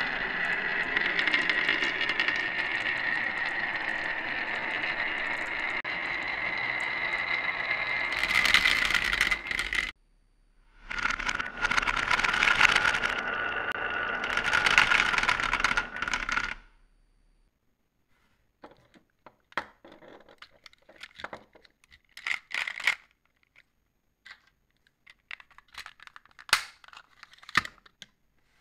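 A crowd of marbles rolling down a wavy serpentine groove in a wooden slope, a steady whir with a clear ringing tone. It cuts off about ten seconds in, and a second run follows for about six seconds. After that come scattered small clicks and rattles, ending with a plastic toy truck being handled.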